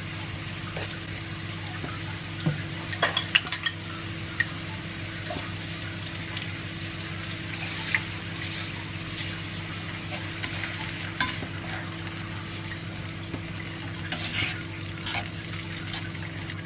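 Sliced capsicum and carrots frying and sizzling in a pan on a gas stove, stirred, with a utensil clinking sharply against the pan several times about three seconds in. About halfway through a calamansi, brown sugar and water sauce mixture is poured in and stirred through. A steady low hum runs underneath.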